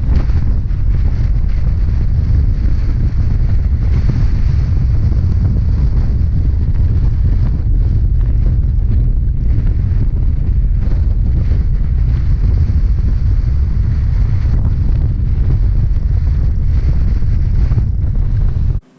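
Strong wind buffeting the microphone: a loud, steady, low rumble that cuts off abruptly just before the end.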